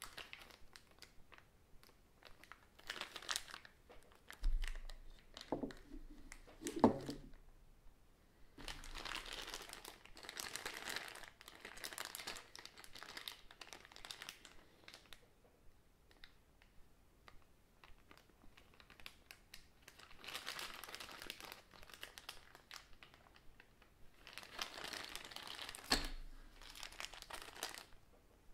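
Clear plastic bags of RC kit parts crinkling in spells as hands handle them, with a few sharp knocks as parts are put down on the wooden table.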